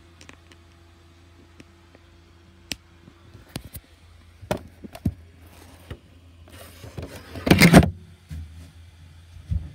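Handling noise from a tablet being moved and set down: scattered sharp clicks and taps, then a loud rubbing scrape about seven and a half seconds in, over a low steady hum.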